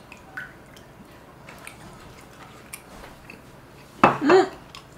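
A short voiced exclamation about four seconds in, its pitch rising and falling, right after a sip of ice-cold soju. Before it there are only faint ticks and small clicks of glass and cutlery.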